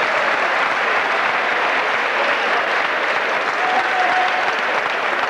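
Crowd in a sports hall applauding and cheering, a steady dense wash of clapping and voices.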